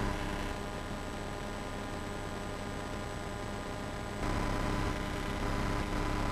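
Steady hiss and hum from an old analogue camcorder recording, with no distinct events. The noise steps up in level about four seconds in, at an edit.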